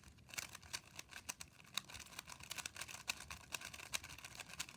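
3x3 speed cube being turned quickly by hand, its plastic layers making a fast, irregular run of light clicks, starting just after the start.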